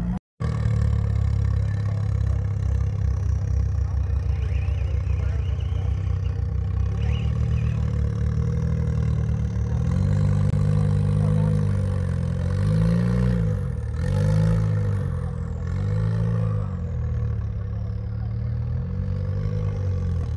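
Rock crawler's engine running under load, its throttle worked up and down in a series of revs, with some clatter.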